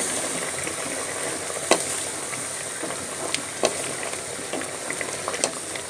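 Chicken and potato masala sizzling in a pot as its liquid cooks down, while a spoon stirs it, knocking sharply against the pot four times.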